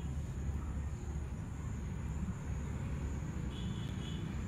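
Outdoor background: a steady low rumble, with a few faint high chirps about three and a half seconds in.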